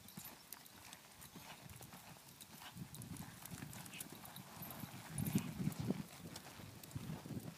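Hoofbeats of a horse loping around a barrel on a soft dirt arena: faint, irregular thuds that grow louder about five seconds in as the horse comes round the barrel.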